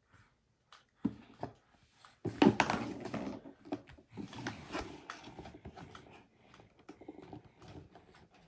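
Clicks and rattles of a plastic toy kitchen set being handled while its screwed battery cover is opened, with a louder stretch of scuffling about two seconds in.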